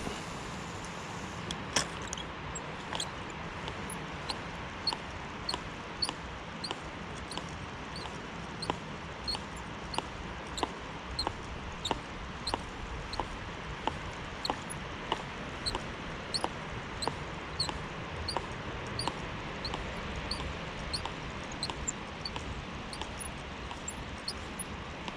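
Dry spinning reel squeaking with each turn of the handle as the lure is wound in, a short regular squeak about one and a half to two times a second, with a sharp click about two seconds in. The squeak comes from a reel that wants oil. Steady wind and river noise sits underneath.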